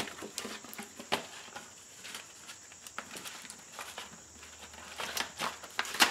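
Sheets of sandpaper rustling and crinkling as they are handled and sorted, with scattered light taps and a louder rustle right at the end. A faint steady high-pitched whine runs underneath.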